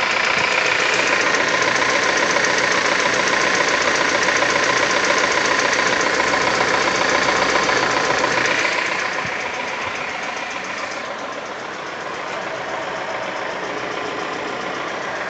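ZMZ-402 inline-four petrol engine running with a fast, even knock in its beat, a knock whose cause the owner cannot identify. The sound drops somewhat in level a little past halfway.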